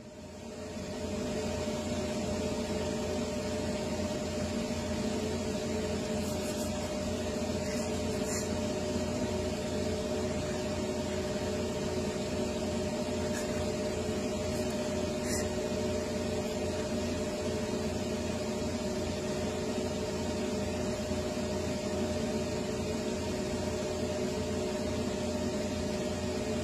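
Steady machine hum and hiss: a low drone with a few constant tones, fading in over the first second or so. A few faint clicks come partway through.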